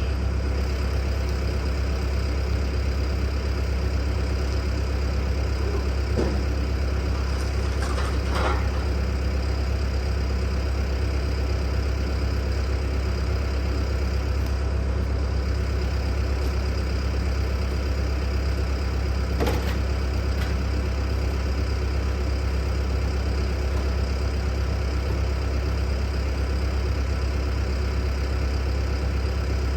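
An engine running steadily at idle, a constant low hum, with a few faint clinks over it.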